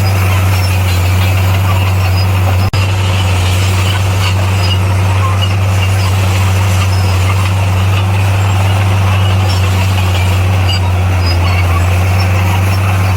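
Bulldozer's diesel engine running steadily with a deep, even drone, briefly dropping out for an instant about three seconds in.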